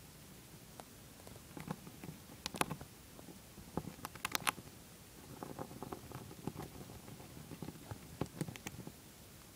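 Dwarf hamster gnawing a shelled peanut: irregular small crunching clicks, with a few sharper clicks about two and a half and four seconds in and a denser run of softer ones near the end.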